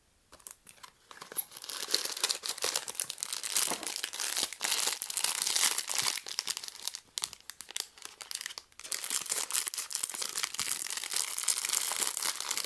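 Crinkly plastic wrapping of a blind-box figure being handled and torn open: dense crackling and rustling, with a few short pauses.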